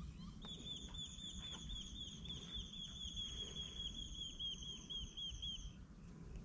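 A bird calling: a fast, even series of high, slightly down-curving notes, about five a second, starting about half a second in and stopping shortly before the end, over a steady low rumble.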